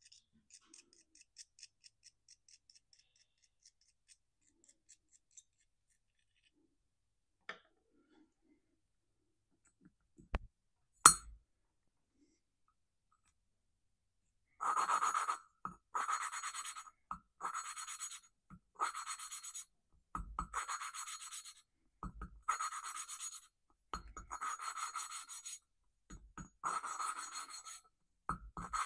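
Exhaust valve of a Kohler Command cylinder head being lapped into its seat with coarse valve grinding compound, to clear carbon buildup from the seat. The valve makes gritty grinding strokes in about eight bouts of roughly a second each, beginning about halfway through, after a few faint clicks and one sharp knock.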